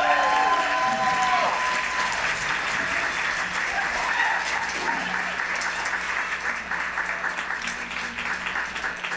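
Audience applauding and cheering, with a few whoops in the first second or two; the clapping slowly thins out toward the end.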